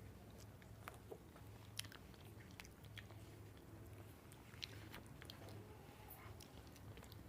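People chewing mouthfuls of banana: faint wet smacks and mouth clicks scattered irregularly, over a low steady hum.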